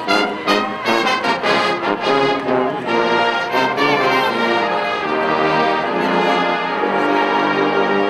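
Marching band playing: a loud brass chorus of trumpets, trombones and sousaphones, with a few sharp drum hits in the first two seconds, then held chords.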